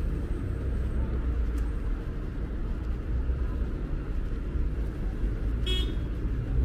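Steady low rumble of road traffic from cars passing on a city street. About six seconds in comes a brief high-pitched squeak.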